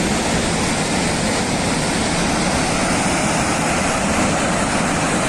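Floodwater rushing in a loud, steady torrent down a mountainside, from a burst water reservoir.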